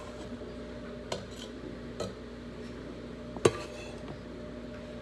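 Kitchen knife knocking on a wooden cutting board while chopping vegetables: three sharp knocks, about a second apart at first, the loudest about three and a half seconds in, over a steady low hum.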